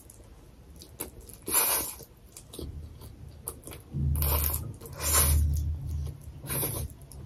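Close-miked eating of stir-fried noodles: four sharp slurps as strands are sucked into the mouth, with chewing sounds in between, heavier in the second half.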